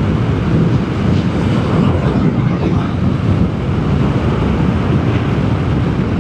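Vespa GTS 300 scooter cruising at a steady speed: its single-cylinder four-stroke engine running steadily under wind rush on the microphone.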